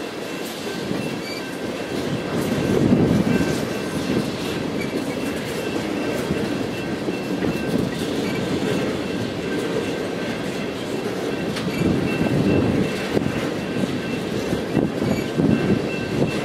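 Ballast hopper cars of a rock train rolling past a grade crossing, steel wheels clattering over the rail joints in repeated surges. A faint, evenly repeating high ring from the crossing bell sounds over them.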